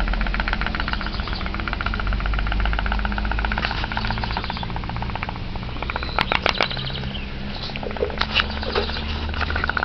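Homemade toy pop-pop boat's steam engine running with a rapid, even putt-putt pulsing. A few sharp clicks sound in the second half.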